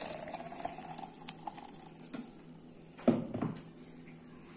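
Hot water poured from a kettle into a glass jug of whole sumac berries, the filling note rising slowly in pitch until the pour stops about two seconds in. About three seconds in comes a single short knock, the loudest sound here.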